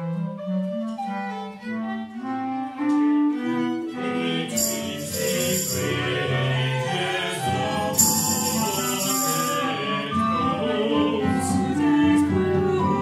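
Live chamber ensemble of recorders, violins, viola, bass clarinet and voices playing overlapping melodic lines in a contemporary piece, the texture thickening about four seconds in. A high shimmering percussion sound comes in twice, about four and a half and eight seconds in, each lasting over a second.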